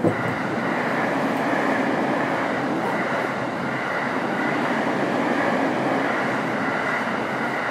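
Electric commuter train rolling on the rails, a steady rumble that comes in suddenly and holds even.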